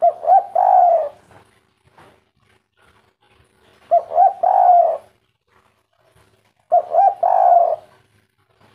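Spotted dove (tekukur) cooing three times, each call a 'kuk 3' phrase: two short notes and then a longer falling coo.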